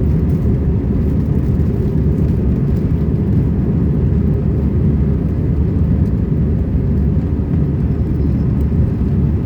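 Airbus A320 cabin noise: a steady low rumble of the jet engines and airflow, heard from inside the passenger cabin.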